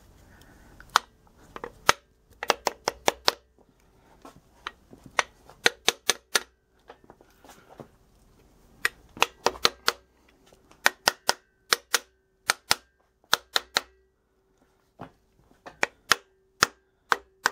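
Rubber mallet tapping a machined aluminium main-cap girdle down onto its dowel pins over the crankshaft of a Honda B-series engine block. The sharp taps come in quick runs of several, with short pauses between.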